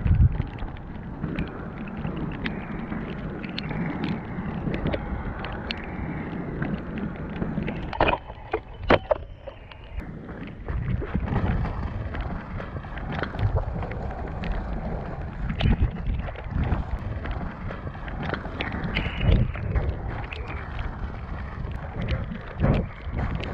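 Powerslide Imperial SUV off-road inline skates on tyres rolling over a muddy dirt trail: a continuous rumbling rattle with scattered sharp knocks, the loudest a few about eight and nine seconds in, and wind on the microphone.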